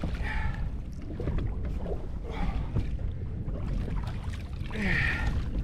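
Wind and water noise around a small boat, with three short, brighter splashing or scraping sounds about two seconds apart, the last the loudest.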